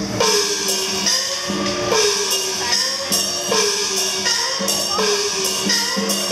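Chinese percussion music of gongs and cymbals, struck again and again in a steady rhythm. After each gong stroke the pitch slides, some downward and some upward, in the manner of Chinese opera gongs, while the cymbals crash high.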